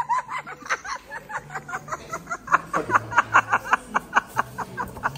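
Someone snickering and chuckling in quick repeated breaths over background music with a bass line.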